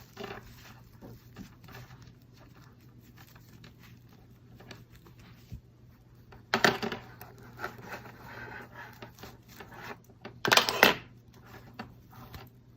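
Cloth rustling and small handling noises as a strip of cut T-shirt, used as elastic, is threaded through the fabric casing of a homemade cotton mask, with two louder rustles, one about six and a half seconds in and one about ten and a half seconds in.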